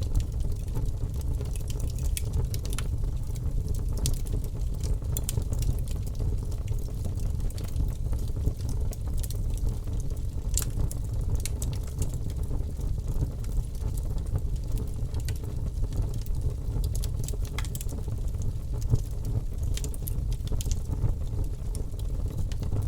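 Bonfire burning: a steady low rushing noise with many scattered sharp crackles and pops of burning wood.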